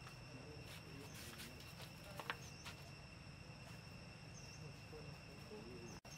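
Faint, steady, high-pitched insect drone, with a few soft ticks and one sharper click a little over two seconds in.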